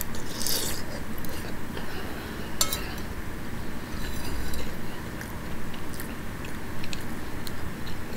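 Close-up eating sounds: a mouthful of pozole being chewed from a metal spoon, with the spoon clinking sharply against the bowl about two and a half seconds in and lighter spoon clicks later.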